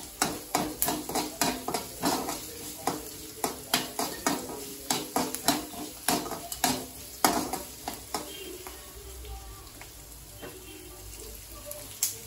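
Steel ladle scraping and knocking against an aluminium kadai as sliced onions are stirred while they fry and sizzle in oil, sautéing until soft. The strokes come quickly, about three a second, then grow sparser and fainter after about eight seconds.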